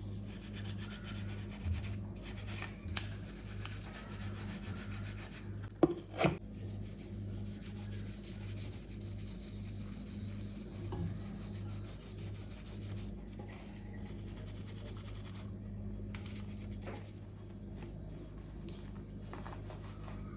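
Scrubbing and rubbing on a washing machine's surfaces during cleaning, in repeated even strokes. Two sharp knocks come about six seconds in.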